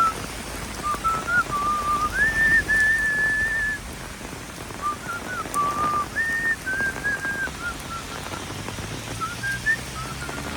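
A whistled tune: single clear notes held and stepping up and down in pitch, over the steady hiss of heavy rain.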